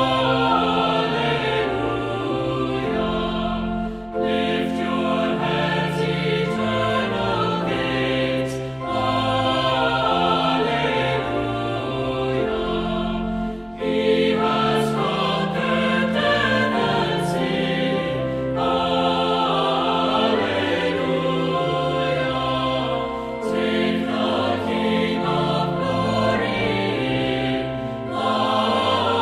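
A choir singing a verse of an Easter hymn, phrase by phrase, with brief breaks between the phrases.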